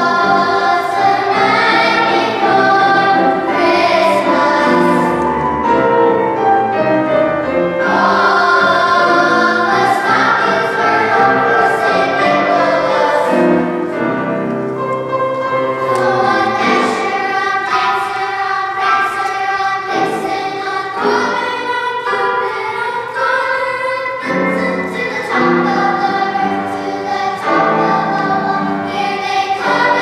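Children's choir singing in parts, with full chords that change every second or so.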